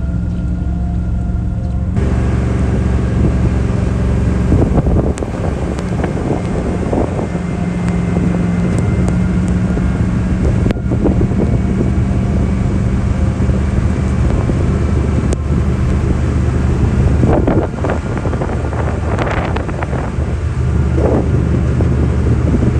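2001 GMC Sierra 2500HD pickup towing a camper, its engine running with a steady low hum under road and wind noise. The noise thickens about two seconds in, with a few crackly stretches.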